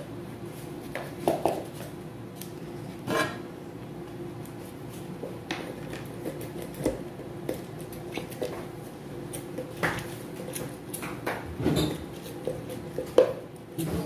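Scattered light clinks and knocks of dishes and utensils on a kitchen counter around a stainless steel serving tray, with a faint steady hum underneath.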